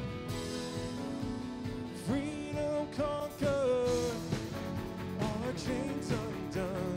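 Live worship band playing a contemporary worship song, with guitars and keyboard. A singer's voice comes back in about two seconds in and carries a sung line through the rest.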